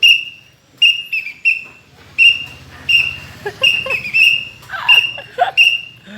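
A baby's toy whistle peeping in a dozen or so short, high, steady-pitched toots at an uneven quick pace.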